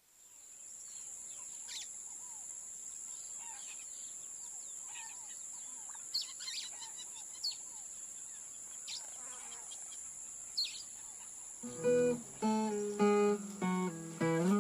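Birds chirping now and then over a steady high-pitched drone. About twelve seconds in, an acoustic guitar starts picking single notes as a song intro.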